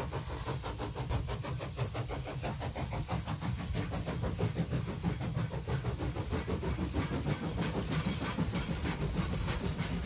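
Passenger train carriage running along the track, heard at an open window: a steady low rumble with dense rattling clicks from the wheels and carriage, over a steady high hiss.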